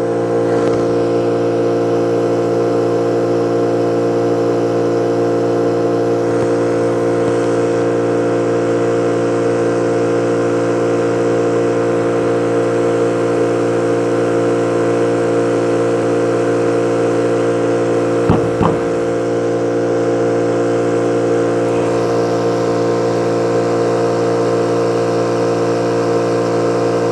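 Small air compressor running with a steady hum, inflating a wood chipper's tire toward 35 PSI after it was sealed with tire sealant.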